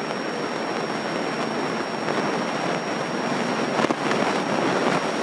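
Steady rushing cabin noise of a small training airplane in flight: engine and airflow noise, with a thin high tone running through it and a brief click about four seconds in.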